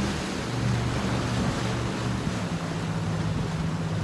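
Surf washing against the rocks and wind noise, under a steady low drone of a boat engine out on the water.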